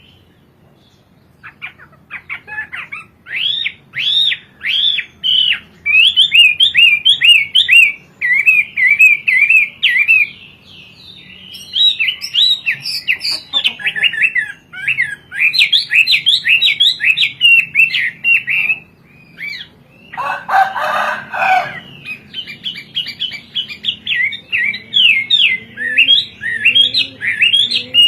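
Chinese hwamei singing: loud, varied song of quick rising and falling whistled notes repeated in runs, with short pauses between phrases. About twenty seconds in there is a brief lower, harsher burst.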